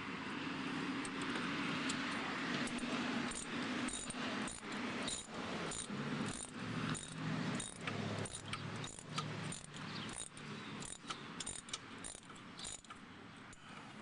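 Wrench tightening a sway bar end-link nut on its bolt: a scraping start, then a run of sharp metallic clicks about twice a second as the nut is turned down.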